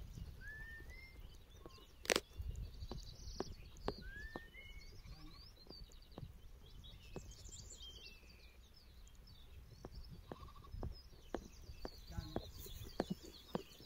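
Faint open-field ambience with wind rumble on the microphone and a few short, rising whistled notes and high chirps. Scattered sharp clicks sound throughout, the loudest about two seconds in.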